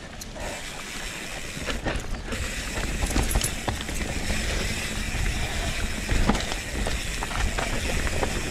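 Mountain bike descending a rough dirt trail: tyres rolling over dirt and rocks, with the chain and frame rattling and clicking over the bumps. Wind rumbles on the microphone, and the noise grows louder as the speed picks up.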